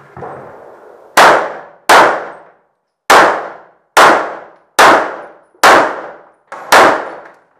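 Seven handgun shots fired one at a time, roughly a second apart, each loud crack trailing off in a long echo off the cinderblock walls around the shooter.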